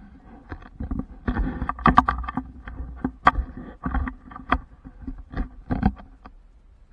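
Someone wading through shallow seawater: irregular splashes and sloshing with a string of sharp knocks, loudest about two seconds in.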